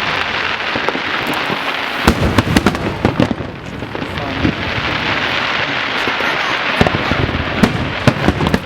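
Aerial fireworks display: a continuous dense crackle and hiss of bursting shells, punctuated by sharp bangs, with a cluster about two seconds in and another near the end.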